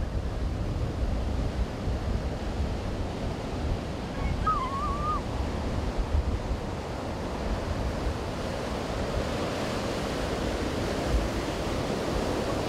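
Surf washing and breaking on a beach, with wind gusting on the microphone as a low rumble. A brief wavering whistle-like call sounds about four seconds in.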